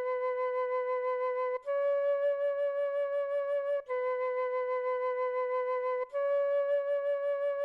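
A flute playing a beginner exercise alone, with no accompaniment: long held notes that alternate between two pitches a step apart. The low note steps up about a second and a half in, drops back near four seconds, and steps up again about six seconds in.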